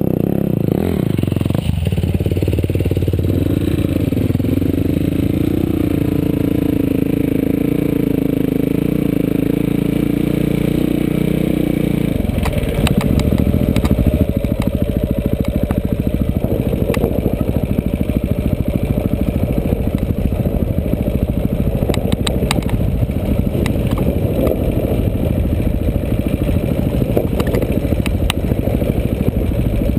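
Quad bike engine running under load on an off-road ride, holding a steady note for the first dozen seconds. Then the note drops and the sound turns choppy and uneven, with knocks and rattles as the machine crosses rough, rocky ground.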